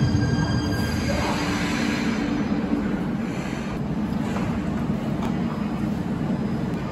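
Cologne KVB high-floor light-rail train coming to a stop at the platform: its low rumble and a faint whine die away over the first couple of seconds. The stopped train then hums steadily.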